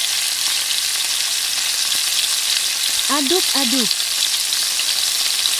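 Wet spice paste frying in hot oil in a wok, with a steady sizzle.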